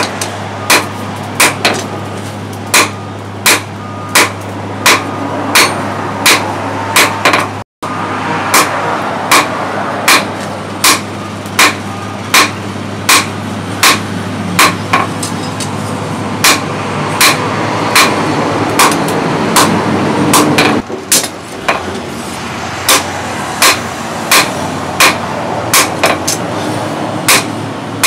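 Hand hammer striking an orange-hot steel billhook blade on a post anvil: sharp, evenly paced blows at about one and a half a second, with a steady low hum underneath.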